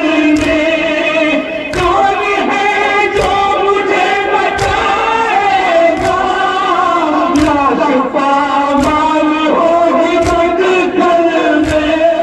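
Men chanting a noha, a Shia Muharram lament, into microphones in long, wavering held notes, with the crowd joining in. It runs over a steady beat of sharp strokes about every 0.7 s, the rhythm of chest-beating (matam) that keeps time with a noha.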